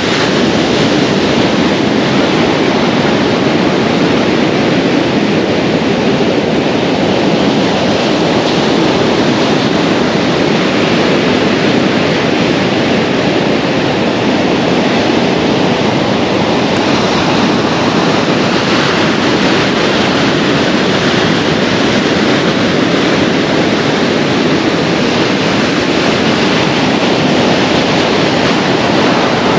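Rough sea surf breaking along the beach, a loud steady wash of noise with wind on the microphone.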